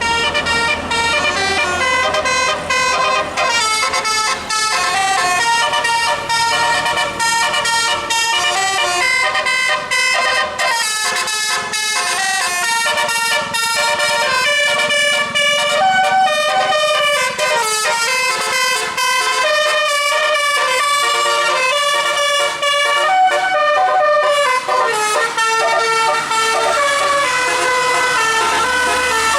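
Bus telolet horn: a multi-trumpet musical air horn playing a long, fast melody of short notes that step up and down in pitch without a break.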